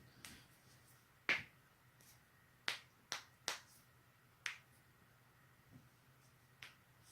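Joints cracking: about seven short, sharp pops, the loudest a little over a second in, then a quick run of three near the middle and a few weaker ones after.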